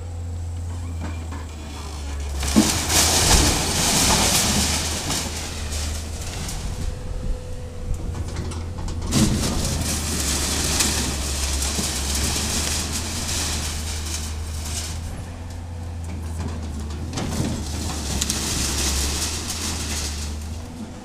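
Hydraulic excavator running steadily while its bucket tears into a wooden house with a corrugated-iron roof: timber and metal roofing sheets crash and clatter. The crashing comes in three spells, about two and a half seconds in, around nine seconds in and again near seventeen seconds.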